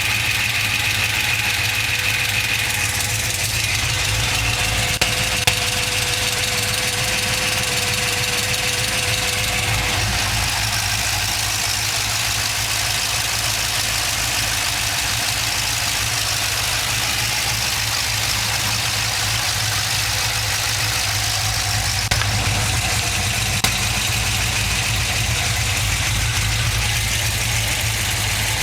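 GM LS2 6.0-litre V8 idling steadily, with the light ticking noise its owner is showing. There are a few brief, sharper clicks: two about five seconds in and two more some twenty-two seconds in.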